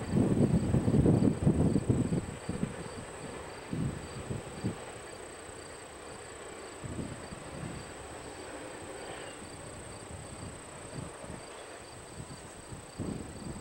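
Insects chirping in a steady rhythm, about two high chirps a second. For the first two seconds or so, wind buffets the microphone with loud gusty rumbling, which then dies down to occasional light puffs.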